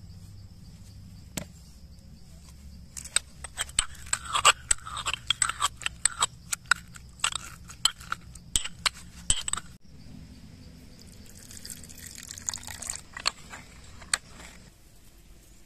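Steel pestle pounding tomato and red chillies in a small steel mortar to crush them for chutney. A quick, irregular run of sharp metal-on-metal knocks starts about three seconds in and lasts about seven seconds, then gives way to quieter grinding for a few seconds.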